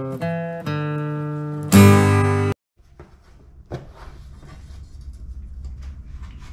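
Acoustic guitar intro jingle: a few strummed chords, the loudest about two seconds in, cut off suddenly. Then a low steady room hum with faint small clicks as metal parts are handled on a workbench.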